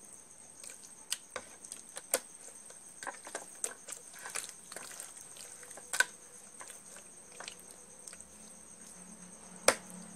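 Hands rubbing marinade into raw chicken pieces: soft wet squelches and scattered small clicks, with two sharper knocks, one midway and one near the end. A steady high cricket trill runs underneath.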